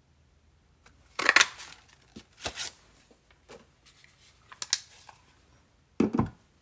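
A Label Me Lovely paper punch pressed through cardstock with a sharp crunching clunk about a second in. Several softer paper rustles and clicks follow as the punched tag is handled, and there is a dull thump near the end.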